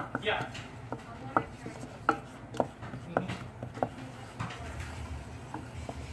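Wooden spoon stirring a thick sauce in a stainless steel saucepan, knocking against the side and bottom of the pot in a string of irregular sharp taps, about two a second. The loudest tap comes right at the start.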